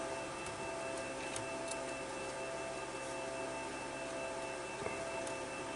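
Steady room hum with a few thin, steady whining tones over a faint hiss, and a few faint light clicks from the metal drive plate and wires being handled.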